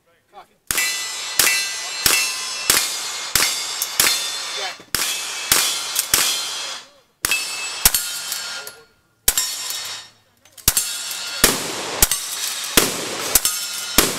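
Lever-action rifle fired in a rapid string, about one shot every half to two-thirds of a second, with short breaks about seven seconds in and again near ten seconds. Each shot has a brief ringing tail, the clang of steel targets being hit.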